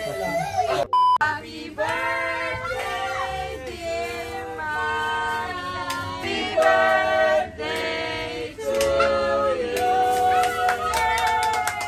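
Singing over music: a melody of long held notes that step and glide between pitches, with a steady low accompaniment. A short beep sounds in a brief break about a second in.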